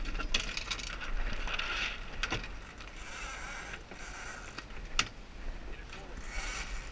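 Sail-handling on a Lightning sailboat: lines running through blocks and ratchet blocks clicking as the crew works the sheets in a maneuver, in irregular rustling swells. A sharp knock comes about five seconds in, over a steady low rumble.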